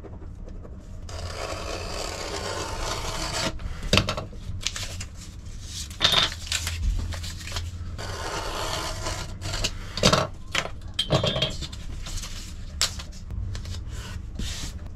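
Paper template being worked by hand on a plywood work board: a steady scraping rub for about two seconds, then sliding and rubbing of paper on wood broken by a few sharp knocks as a metal straightedge and the wooden frame are handled.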